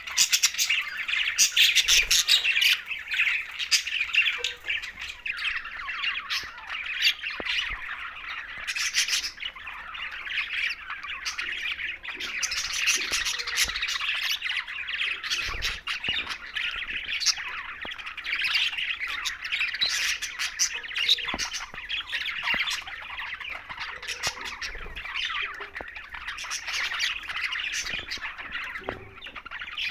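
A flock of budgerigars chattering, an unbroken mix of chirps, squawks and warbles from many birds at once.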